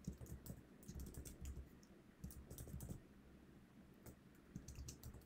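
Faint keystrokes on a computer keyboard while code is typed: a run of clicks over the first three seconds, a short pause, then a few more near the end.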